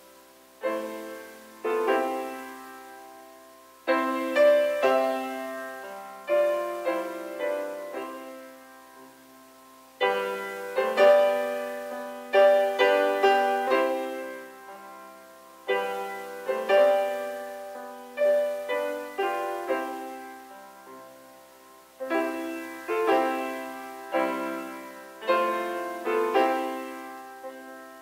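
Grand piano played solo: slow chords struck and left to ring, in phrases of a few seconds with a brief dip in loudness between them.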